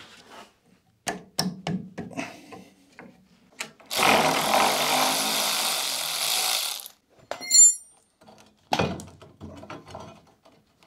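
Tow-bar bolts being undone on an old Citroën Méhari chassis: scattered clicks and knocks of a wrench on the fittings. Midway a power tool runs for about three seconds, then there is a short metallic ring and a few more clicks near the end.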